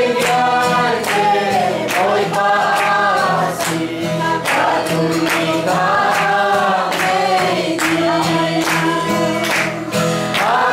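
A room full of young men and women singing a song together in chorus, with hand claps keeping the beat.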